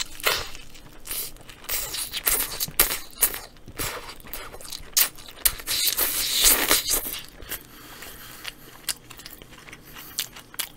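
Close-miked bites and chewing of a large burger, with irregular crunching and the paper wrapper crinkling; the crunching thins out in the last few seconds.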